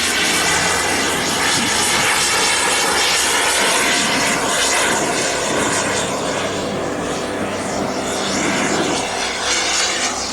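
Turbine engine of a radio-controlled model F-16 jet flying a slow pass overhead: a steady rushing jet noise with a whine running through it, easing off slightly near the end.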